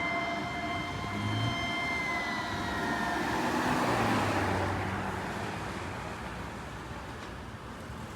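Fire truck's Eagle siren holding a high steady wail, then winding down in pitch about three seconds in, over road and traffic noise. The sound fades as the truck moves away.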